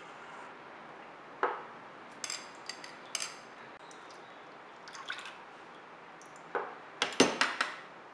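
Metal spoon and white porcelain bowl clinking against each other and against a stainless steel loaf pan while a citrus jelly mixture is poured, with light splashing. The clinks come singly and in small groups, some ringing briefly; the loudest run of clinks is near the end, as the bowl is tipped and shaken out over the pan.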